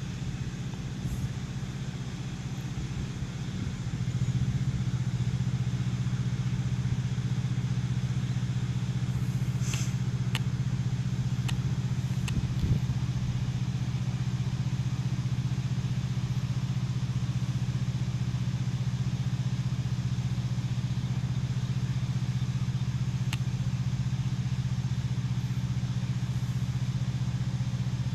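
A motor vehicle's engine running steadily with a low, even hum that gets louder about four seconds in.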